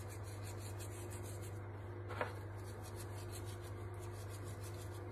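Hands rubbing salt into a raw leg of lamb, a faint soft rubbing, with one light tap about two seconds in, over a steady low hum.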